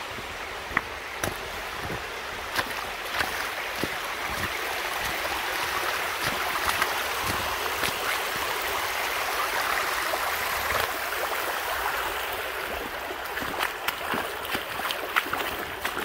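Shallow creek rushing over a rocky shale bed, a steady water noise that swells a little in the middle, with scattered short clicks.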